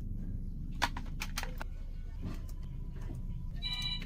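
A few sharp clicks and taps about one to one and a half seconds in, over a steady low hum, with a short pitched tone near the end.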